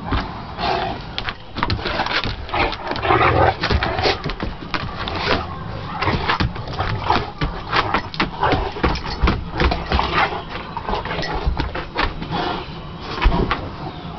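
Two English mastiffs play-fighting: dog growls mixed with many quick clicks and knocks from paws and claws scrabbling and thudding on wooden deck boards.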